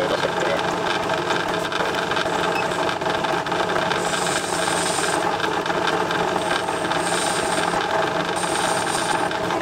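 Metal lathe running while its carbide tool turns a small pin down to a smaller diameter at the end. The running sound is steady, and a faint high hiss comes and goes three times in the second half.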